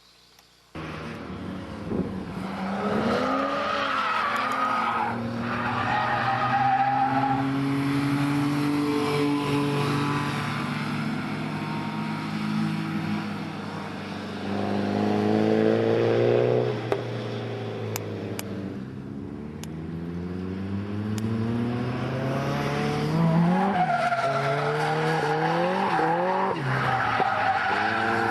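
Toyota AE85 Sprinter Trueno engine revving up and down over and over as the car is drifted, through a Trust muffler rusted through with holes, with tyres squealing. It starts suddenly about a second in.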